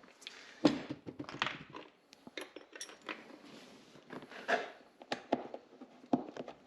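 Irregular clinks and knocks of small metal hardware and tools being handled, a dozen or so sharp strikes at uneven intervals.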